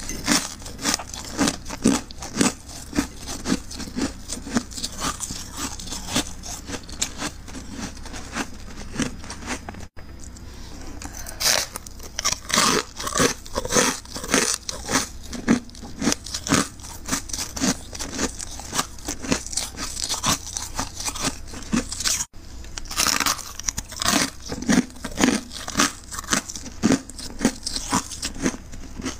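Close-up, crisp crunching of freezer frost being chewed: a dense run of fast crunches over a slower chewing rhythm of about two strokes a second, broken off for an instant twice.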